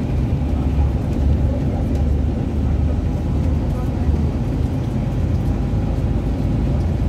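Steady low rumble of a moving coach bus, engine and road noise heard from inside the passenger cabin.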